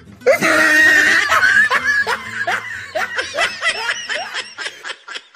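Loud, high-pitched laughter: a sustained shriek of a laugh, then a run of quick 'ha-ha' pulses that fade out toward the end.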